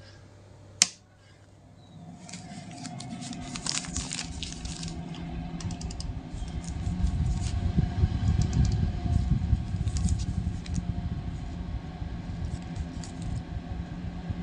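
A rocker switch clicks once about a second in. Then the chimney's 12-volt DC cooling fan starts and runs up to a steady whir with a low hum, with some light rattling crackle over it.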